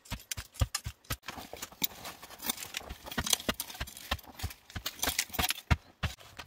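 Machete blade striking into dry packed earth in quick repeated chops, about four a second, followed by the blade scraping and loose soil being raked and scattered. The chopping and scraping stop just before the end.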